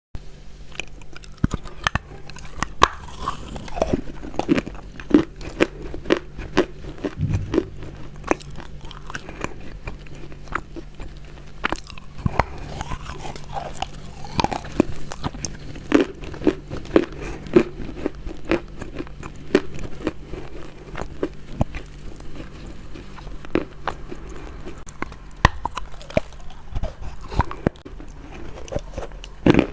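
Close-miked chewing of crunchy food: repeated sharp crunching bites coming in bursts of several a second, with a faint steady hum underneath.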